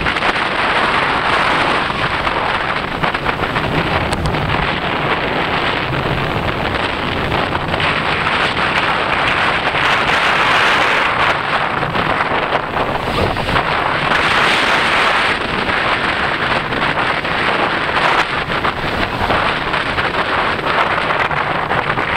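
Steady wind noise rushing over the microphone of an off-road vehicle driving over desert dirt trails, with the vehicle's running and tyre noise underneath. The wind rush swells and eases over the run.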